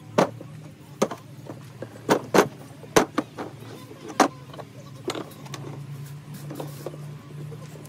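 Metal kart wheel rims, a tyre and tools knocking and clinking as they are handled and set down on a table while new tyres are fitted, about eight sharp knocks in the first five seconds. A steady low hum runs underneath and grows louder after about five and a half seconds.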